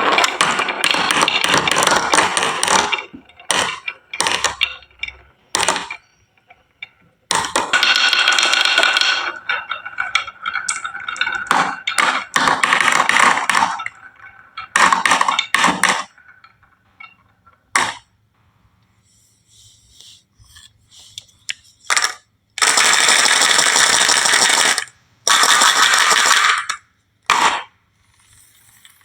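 Marbles rolling and rattling down a wooden marble-run track in runs of one to three seconds, with single clicks and knocks and short quiet gaps between.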